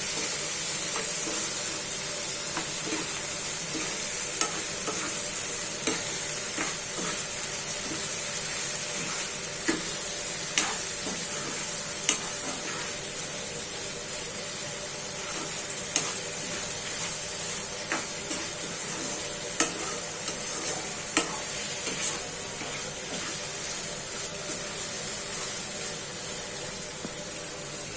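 Tuna and tomato curry sizzling steadily in a frying pan while it is stirred, the stirring utensil knocking and scraping against the pan every second or two.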